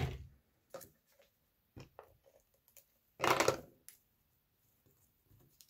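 Hands handling paper and cardstock on a craft mat: a few light taps and clicks, with a brief rustle about three seconds in.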